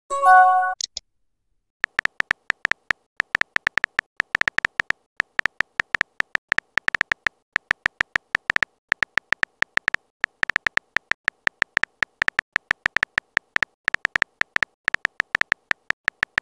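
Phone keyboard typing clicks, irregular at several a second, as a text message is typed out. About half a second in, a short chiming message tone sounds.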